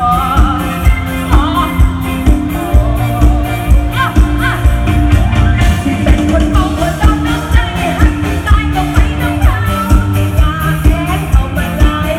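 Live luk thung mor lam band music played loud through a stage PA: a singer over a steady drum beat of about two beats a second.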